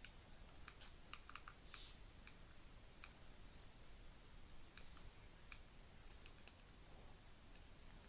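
Near silence broken by a dozen or so faint, sharp clicks at uneven intervals, bunched in the first two seconds and again around five to six and a half seconds in.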